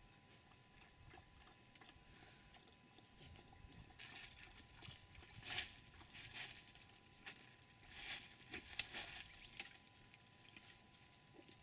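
A dromedary camel browsing in a leafy tree: the leaves and twigs rustle and crackle in short bursts as it pulls at the branches, loudest from about four to ten seconds in.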